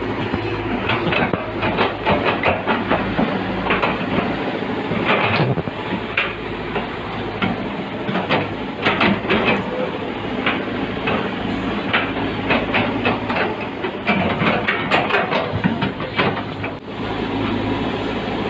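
Heavy construction machinery's diesel engine running steadily, with irregular clusters of metallic clanks and rattles over it.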